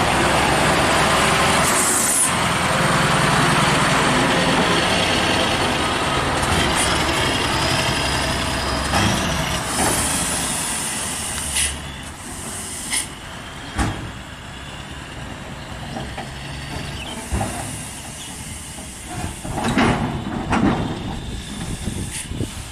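Scania R580 truck's V8 engine running hard, with short sharp air-brake hisses; about twelve seconds in the engine sound drops away, leaving a lower rumble and scattered knocks.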